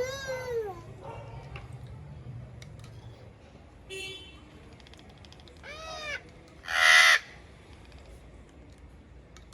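Vosmaeri eclectus parrot calling: short rising-and-falling squawks at the start and about six seconds in, then a loud, harsh screech just after the second one.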